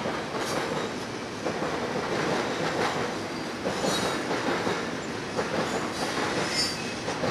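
Double-stack container train rolling past: a steady rumble of steel wheels on rail with irregular clicking, and brief faint high wheel squeals about four seconds in and again near the end.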